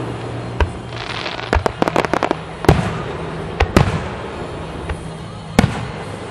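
Aerial firework shells bursting in a string of sharp bangs, with a quick run of crackling pops and a hiss about a second in.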